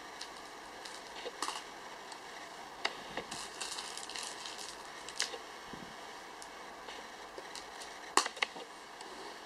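Light rustling and several sharp clicks of a drinking straw being batted about by a kitten's paw and picked up by hand, over a steady faint hiss; the loudest clicks come near the end.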